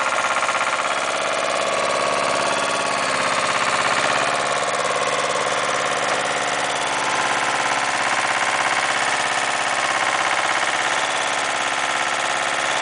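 Engine of a mini dumper with a backhoe attachment running steadily while the backhoe arm digs and lifts soil.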